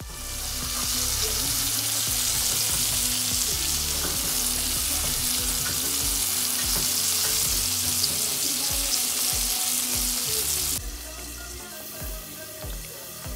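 Flour-coated chicken pieces frying in hot oil: a loud, steady sizzle. About eleven seconds in the sizzle stops and a quieter pot of boiling macaroni takes over.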